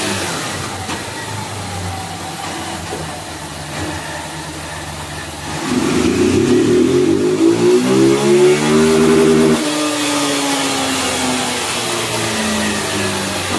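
Honda CG 160 motorcycle's single-cylinder four-stroke engine, bored out with a 190 cc kit and running its stock exhaust, on a chassis dynamometer. It turns over at low revs in gear, then about five and a half seconds in it revs up under full throttle in third gear for about four seconds. The throttle then snaps shut and the engine winds down.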